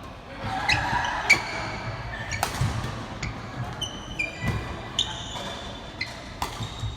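Sports shoes squeaking in short, high chirps on an indoor court floor, many times over, with several sharp hits and thuds mixed in.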